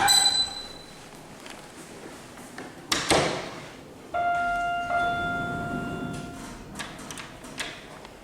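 Otis Series 1 hydraulic lift being ridden: a bright ping right at the start, a thump about 3 seconds in, then an electronic chime tone held for about two seconds and fading, over a low steady hum.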